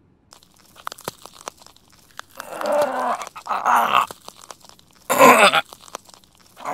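Werewolf shapeshift sound effect: a run of crunching, cracking clicks like bones shifting, then low strained vocal groans and a short harsh growl about five seconds in.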